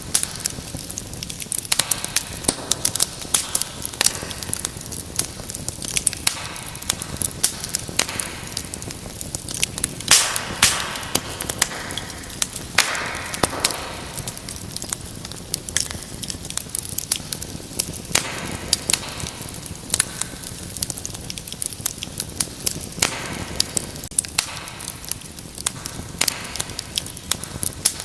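Wood fire in a fireplace crackling: a steady hiss under many sharp pops and snaps, which come thicker for a few seconds around the middle.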